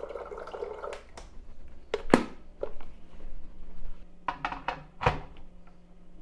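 Tap water running for about a second, then a string of knocks and clunks as a glass electric kettle is set down and handled on its base, the loudest about two seconds in and another about five seconds in.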